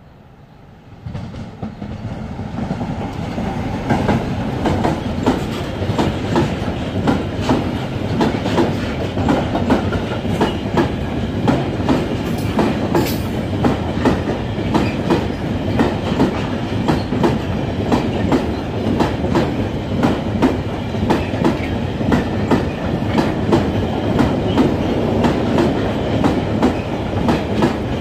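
Electric-hauled freight train of double-deck car-carrier wagons approaching and then rolling past close by. A rumble swells over the first few seconds into steady wheel noise with rhythmic clicks as the wagons' wheels cross the rail joints.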